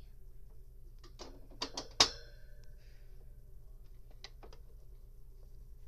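Clicks and rattles of a plastic small-pet cage being handled. The loudest is one sharp clack about two seconds in that rings briefly, and a lighter click follows a couple of seconds later.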